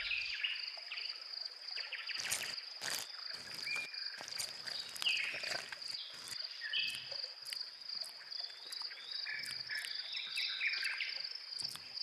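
Natural forest ambience: a steady, high insect trill, with scattered short chirps and many brief, sharp clicks.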